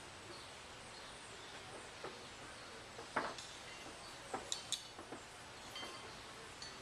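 Steady outdoor background hiss broken by a handful of sharp, irregular clicks or taps, the loudest about three seconds in, with two brief high chirps a little after.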